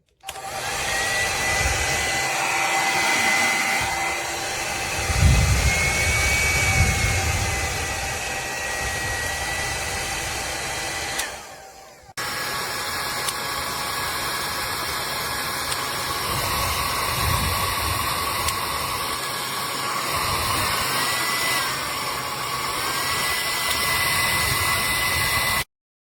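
CONFU 1600W ionic hair dryer running: a steady rush of air over a high motor whine that shifts in pitch a few times. About halfway through it dies away, comes straight back, and near the end it stops abruptly. Low rumbles come and go a few seconds in.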